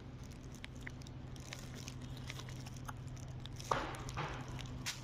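A dog nosing and biting at bread on a plastic wrapper: light crinkling of the plastic and small clicks of chewing, with a louder rustle of the plastic about three and a half seconds in. A steady low hum lies underneath.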